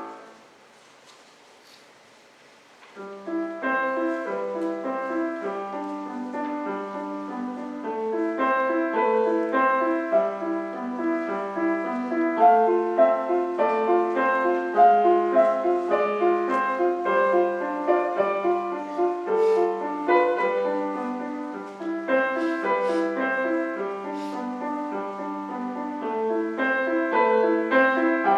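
Solo piano. A held chord dies away, followed by a pause of about three seconds. A new passage then begins, a busy melody over a steady repeated low note.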